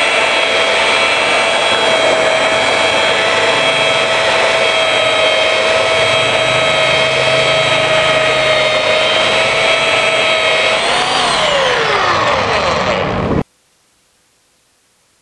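Stanley SB90 belt sander running steadily while sanding a rough unplaned board, its motor making a steady whine over the rasp of the belt. About eleven seconds in, the pitch rises briefly, then falls away, and the sound cuts off abruptly to faint hiss.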